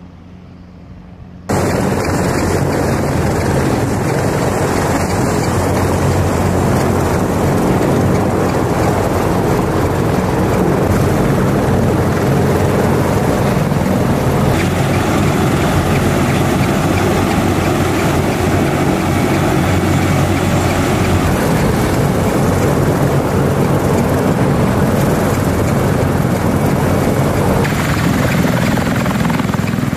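CH-53E Super Stallion heavy helicopter turning on the ground at close range, its rotors and turbine engines making a loud, dense, steady noise that cuts in abruptly a second or two in after a quieter opening. A fainter steady hum joins it about halfway through.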